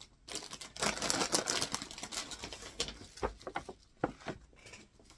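Paper gift bag and snack packets rustling and crinkling as they are handled: a dense run of crackles for about two seconds, then a few scattered taps.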